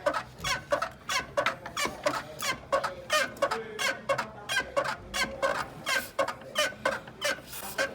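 Renault Clio clutch pedal and cable squeaking over and over as the pedal is pumped: short, sharp squeaks about two or three a second. The squeak comes from the dry clutch cable and pedal linkage, which later turns out to need only lubrication.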